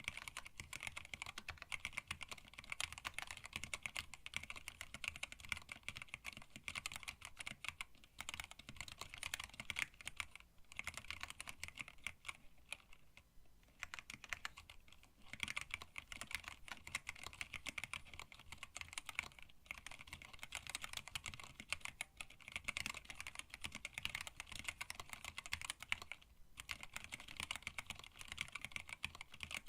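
Steady typing on a hand-wired split mechanical keyboard with Tealios linear switches, PBT keycaps and an acrylic case. The keystrokes come thick and fast, with a few short pauses.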